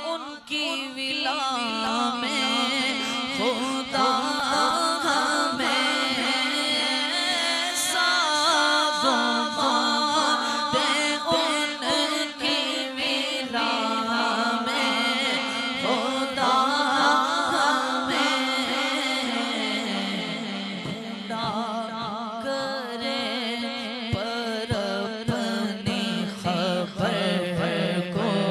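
A voice singing an Urdu naat in a long, wavering, ornamented melodic line without clear words, over a steady low drone.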